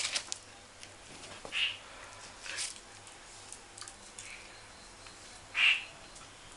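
Dogs at play: a few short breathy huffs, the loudest near the end, among scattered light clicks.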